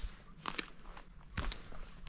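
Footsteps of a hiker walking on a trail: a few short crunching steps at an uneven pace.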